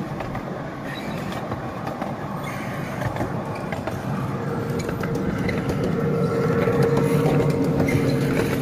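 Ride-on miniature train rolling along its track: a steady rumble and clatter of small wheels on the rails. About halfway through, an engine hum comes in and grows louder.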